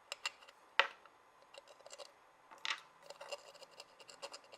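Faint taps and scrapes of soldering tools on a phone circuit board, with a sharper click about a second in and a short scratch a little under three seconds in.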